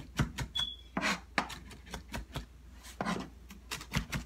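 Knife chopping fresh parsley on a cutting board: an irregular run of quick knocks, a few a second.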